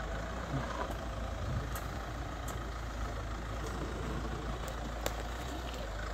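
Mahindra Scorpio N SUV's engine running low and steady as the vehicle creeps slowly over dirt between trees.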